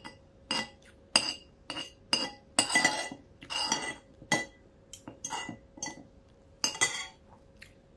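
Metal spoon and fork clinking and scraping against a plate: about fifteen short clinks and scrapes, with a longer scraping stretch around three seconds in, as the last of the food is gathered up from the plate.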